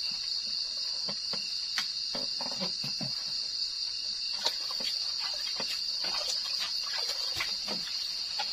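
A steady, high-pitched night chorus of crickets, with scattered small knocks and taps over it.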